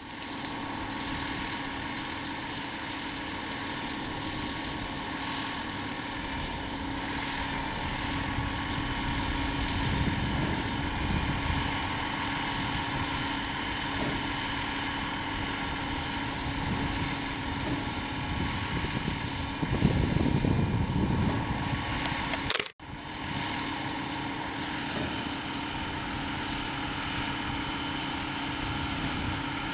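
Truck-mounted mobile crane's diesel engine running steadily while it lowers a heavy load, with a steady hum throughout. It gets louder for a couple of seconds about twenty seconds in, and the sound cuts out for an instant shortly after.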